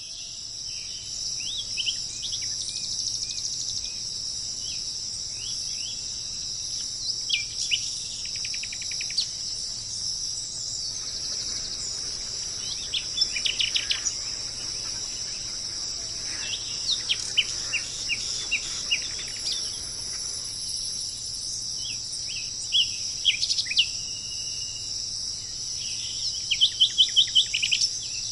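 Steady, high-pitched drone of tropical insects, with a bird calling over it in short chirps and quick runs of sharp notes, the loudest a fast series of about six notes near the end.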